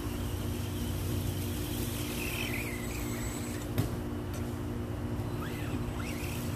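Steady outdoor background of insects with a low, constant hum underneath, a few short chirps, and one sharp click about four seconds in.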